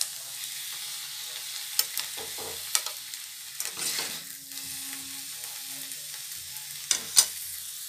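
A metal spoon scraping and clinking against an aluminium kadhai as cooked saag is scooped out onto a plate, with several sharp clinks, the loudest near the end. Under it, a steady sizzle from the hot pan.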